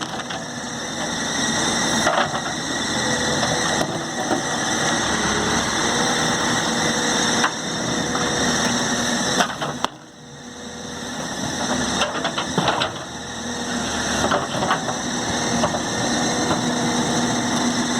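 An engine running, its level rising and falling. It dips sharply about ten seconds in and builds back up over the next couple of seconds.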